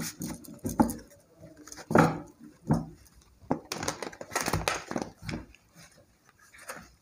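A deck of tarot cards shuffled by hand: irregular snaps, riffles and slaps of the cards against each other, sparser and quieter near the end.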